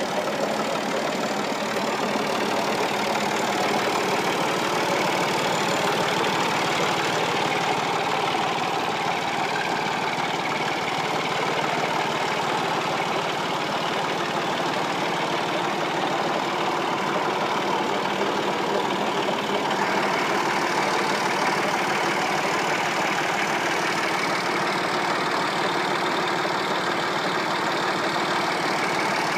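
Massey Ferguson 260 Turbo tractor's three-cylinder diesel engine running steadily at a constant speed, hooked up by its shaft to drive a tubewell pump.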